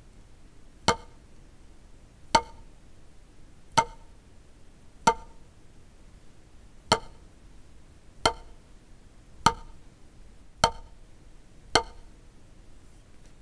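Wooden drumsticks striking a rubber practice pad in slow single full strokes, each stick rebounding back up. Nine sharp taps, a little over a second apart.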